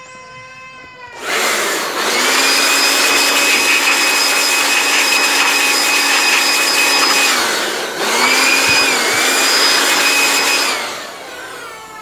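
Handheld electric blower running at full speed to blow dust out of a TV set-top box's circuit board: rushing air with a steady motor whine that starts about a second in, dips briefly near eight seconds, and cuts off near the end as the motor winds down.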